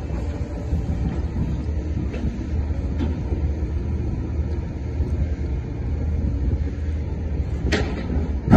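Low steady rumble of heavy diesel machinery, a compact tracked excavator and a crane grab working bulk cargo, with a few faint clanks and one sharp knock near the end.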